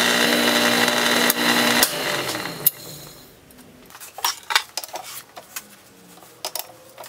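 Small metal lathe running as a twist drill in the tailstock chuck bores into a bronze workpiece, a steady machine hum and cutting noise that fades out two to three seconds in. After that come scattered light metallic clicks and taps as the part is handled in the four-jaw chuck.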